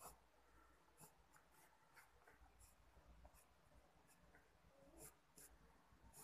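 Faint pencil strokes scratching on paper while sketching: short strokes, about one or two a second.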